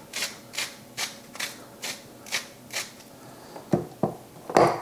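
Hand-turned spice mill grinding salt onto raw veal, a crunching rasp about two and a half times a second that stops about three seconds in. A few knocks follow near the end.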